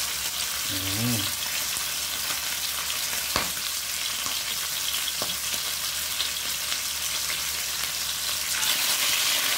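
Seasoned chicken pieces frying in hot oil in a non-stick frying pan: a steady crackling sizzle with a couple of sharp spattering pops. The sizzle grows louder near the end as another piece of chicken is lowered into the oil.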